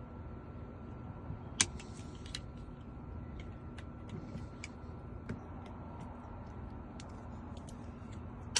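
Scattered small metallic clicks and taps of tools on a car door lock cylinder being taken apart. There is a sharp click about a second and a half in and another at the very end, over a steady low background hum.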